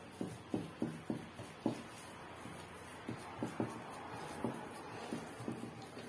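Fingers working a wet semolina and cocoa mixture in a glass bowl, making soft, irregular knocks as the hand presses the mix against the glass.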